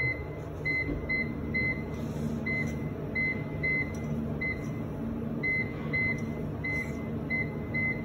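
Salva Kwik Co convection oven's control panel beeping once for each key press: about fifteen short, identical high beeps at uneven spacing, roughly two a second. A steady low hum runs underneath.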